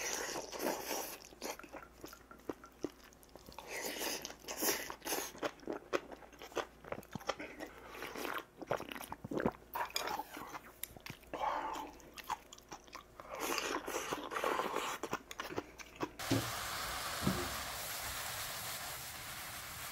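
Close-up mukbang eating: chewing and crunching of rice and side dishes, broken by sharp clicks of a spoon against steel bowls. About 16 seconds in, this gives way to a steady hiss with a few low thumps.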